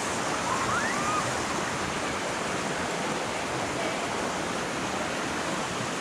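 Steady rush of a shallow creek running over rock ledges and small riffles.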